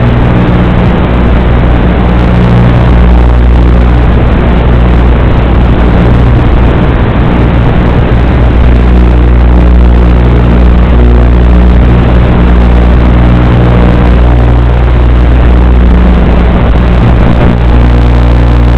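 Steady, loud motor drone of an X2 Elf FPV quadcopter in flight, with a constant low hum.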